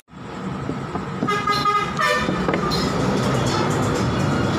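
A vehicle horn sounding twice in quick succession about a second in, over a steady background of traffic noise.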